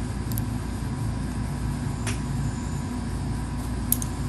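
Steady low background hum, with a few faint light clicks about a second and a half apart.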